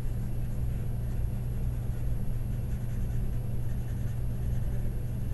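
Paper blending stump rubbing graphite into drawing paper in short, soft, scratchy strokes, smoothing the shading, over a steady low hum.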